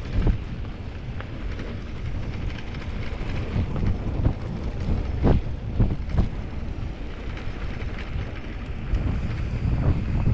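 Norco Sight VLT electric mountain bike riding over a rough dirt trail: a steady low rumble of tyres on dirt, with the frame, chain and suspension clattering over bumps. A few sharp knocks stand out about five to six seconds in and again near the end.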